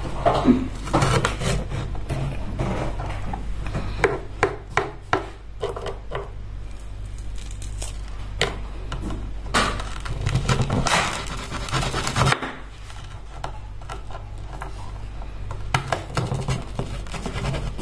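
A knife cutting food on a wooden cutting board, with irregular sharp knocks and stretches of scraping and rubbing.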